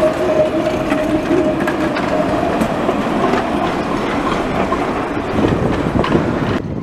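Alstom Citadis low-floor tram rolling past close by on street track: a steady rolling rumble with a single tone that fades out in the first second or two, and a few light clicks. The sound drops away suddenly near the end.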